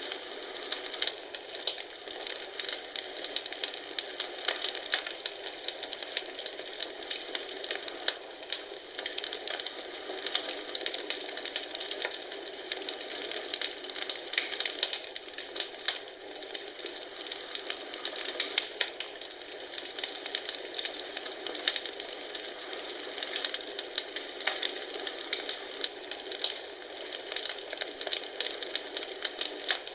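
Wood fire crackling in a fireplace: a steady hiss of burning with many small irregular snaps and pops.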